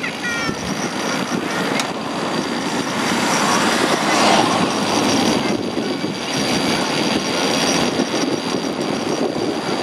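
Steady rough rushing of wind buffeting the microphone, swelling about four seconds in.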